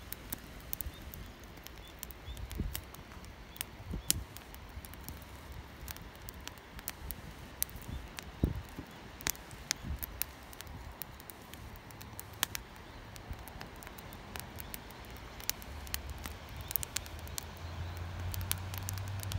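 Scattered sharp clicks and crackles, irregular and sparse, over a steady low outdoor rumble that grows a little louder near the end.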